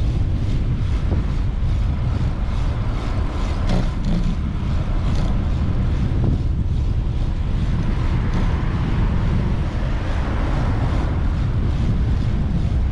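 Steady wind rumble on a moving action camera's microphone, over car traffic on the street; a vehicle swells past about eight seconds in.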